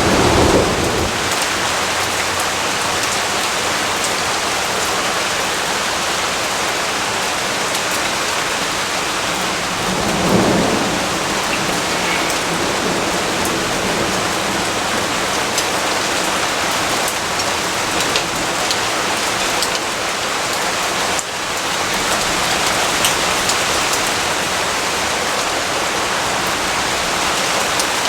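Steady rain falling, with low rolls of thunder at the start and again about ten seconds in.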